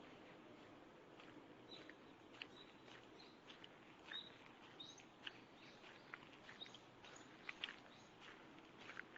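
Faint, scattered bird chirps: many short high notes over a quiet background hiss.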